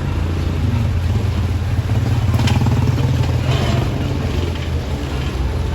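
Steady low rumble of passing motor traffic, with a couple of brief higher, noisy sounds around the middle.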